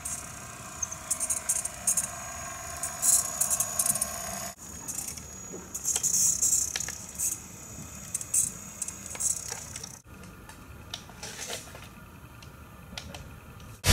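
Siku Control radio-controlled Scania tipper truck driving on a model layout: a steady whine in the first few seconds, with light plastic rattling and clicking throughout.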